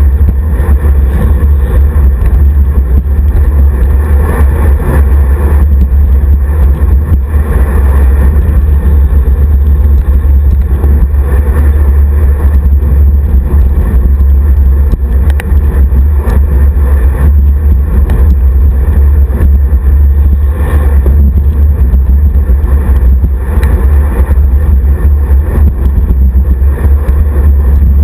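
Wind buffeting and road vibration on the microphone of a handlebar-mounted action camera on a road bike riding in a group: a loud, steady low rumble that drowns out other sound.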